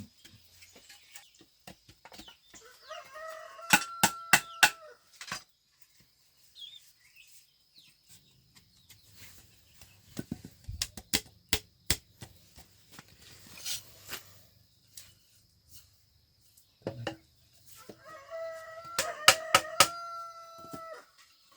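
Rooster crowing twice, each crow lasting about two seconds, with scattered sharp knocks and clicks in between.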